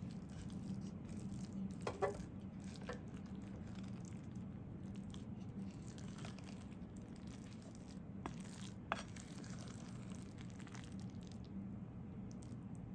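Wooden spatula stirring sticky cooked black glutinous rice in a ceramic pot: soft wet squishing, with a few light clicks of the spatula against the pot, twice about two seconds in and twice about eight to nine seconds in.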